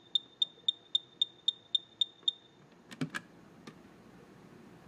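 Kidde smoke alarm giving a rapid run of short, high chirps, just under four a second, while its alarm memory is being cleared. The chirps stop a little over two seconds in, followed by a couple of clicks.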